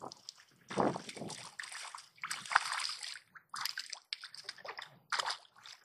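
A hooked fish splashing at the water's surface beside the boat as it is reeled in and landed, in a run of irregular splashes that are loudest about halfway through.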